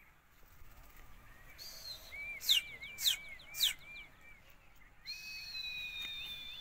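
High whistling: a run of short rising-and-falling notes, about four a second, with three sharp falling whistles among them, then a long, slowly falling whistle near the end.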